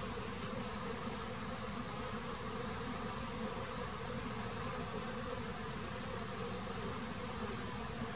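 Many honeybees buzzing together in a steady, unbroken hum around the hive, the colony's agitated activity that the beekeeper sees before heavy rain and storms.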